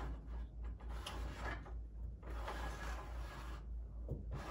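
Dual sheer shade being lowered by hand, its roller mechanism and fabric running with a mechanical rustling in two or three stretches with short pauses between.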